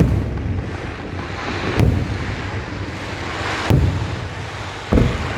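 Aerial fireworks shells bursting: four loud booms about one to two seconds apart, each trailing off in a low rumble.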